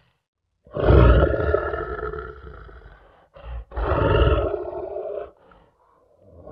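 Lion roaring: a loud roar starts about a second in and trails off over two seconds. A short grunt follows, then a second roar about a second and a half long.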